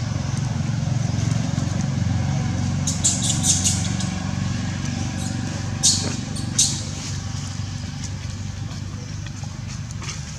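A steady low hum like a running engine continues throughout. A few short, sharp crackling clicks come in a quick cluster a few seconds in, and twice more around the middle.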